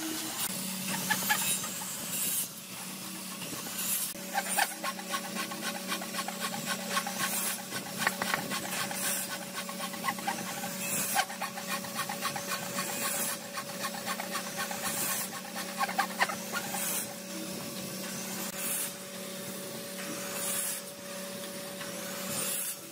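Band saw running with a steady hum while its blade makes short cuts into a thick red hardwood board, one after another, each cut a rasping hiss of a second or two: sawing the cheeks of dovetail joints.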